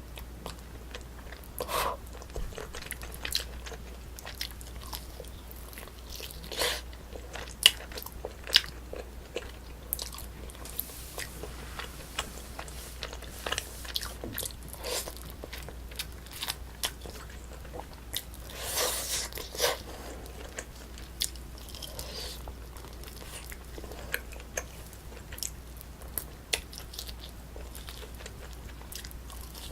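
A person eating a Korean braised spicy chicken meal close to the microphone: chewing and biting, with scattered sharp clicks and wet smacks and a longer burst of chewing about two-thirds of the way through.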